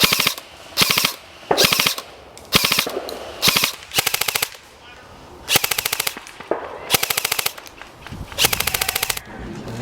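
Airsoft rifles firing repeated short full-auto bursts, each a rapid rattle of shots about half a second long, about nine bursts with brief pauses between.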